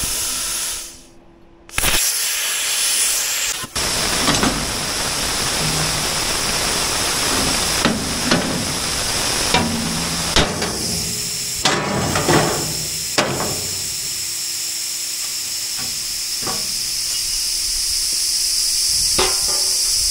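Welding: a steady, crackling hiss that drops out briefly about a second in, with a few sharp knocks along the way.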